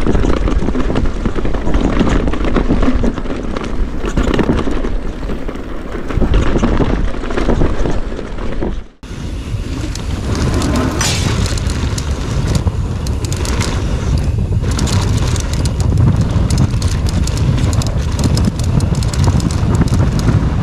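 Downhill mountain bike ride heard from a camera on the rider: wind buffets the microphone over the tyres rolling on a dirt trail, with quick clatters as the bike goes over bumps. The sound cuts out for a moment about nine seconds in, then the ride noise resumes.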